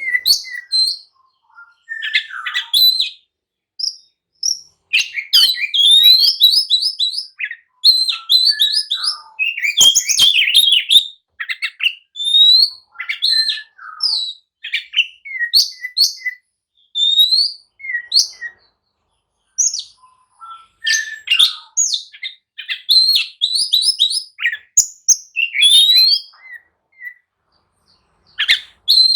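Oriental magpie-robin in an agitated, fighting-mood song: bursts of quick, varied whistles and chattering notes, many of them fast upward sweeps, with short pauses between bursts.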